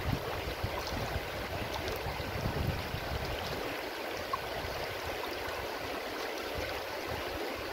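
Shallow, clear river running over a pebble bed, a steady rush of water through the riffles.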